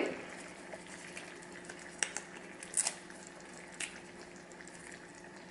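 Red curry with coconut milk simmering faintly in a wok, a low sizzle with three short crackles about two, three and four seconds in.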